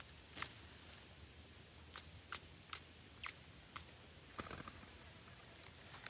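Parakeets giving a series of short, sharp chips, about six spread over a few seconds, with a brief flurry near the end, over a faint steady hiss.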